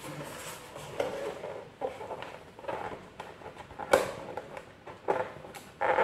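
Handling noise from a clear plastic scooter windscreen as rubber protective washers are fitted at its mounting holes: scattered light clicks and knocks, the loudest about four seconds in.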